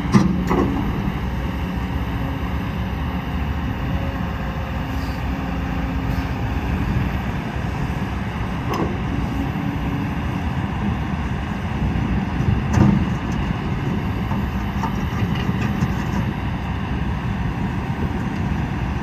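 Kobelco SK200-10 hydraulic excavator's diesel engine running steadily, with a few short knocks: one right at the start, a fainter one near the middle and a louder one about 13 seconds in.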